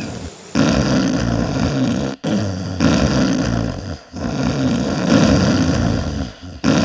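Loud snoring: three long snores back to back, each about two seconds, with brief gaps between them.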